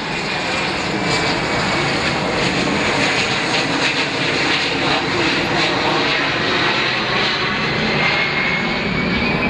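Jet noise from the Beriev Be-200's two turbofan engines as it flies a low pass. The noise is loud and steady, and a thin high whine rises slowly in pitch near the end.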